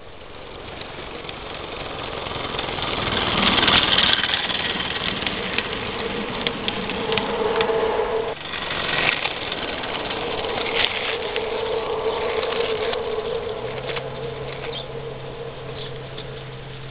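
Bellflower Cricket III live steam locomotive approaching and running, getting louder over the first few seconds, with its steam whistle held in two long blasts and sharp ticks from the running gear.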